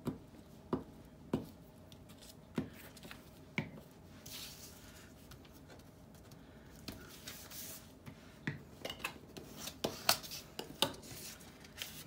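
Paper craft handling on a cutting mat: soft rustling and rubbing of paper pieces being glued and pressed down onto a card, with a scattering of light taps and clicks as things are picked up and set down.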